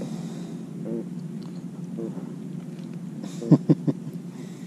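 Catfish croaking as it is held in a rag: short low croaks, then three loud quick pulses about three and a half seconds in.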